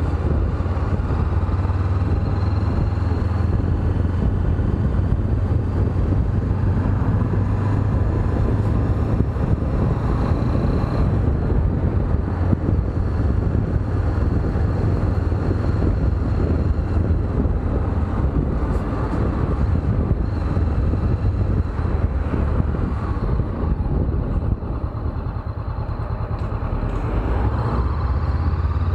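Honda CB500X's parallel-twin engine running steadily while the bike is ridden, under a constant rush of wind noise. The level dips slightly for a few seconds near the end, then rises again.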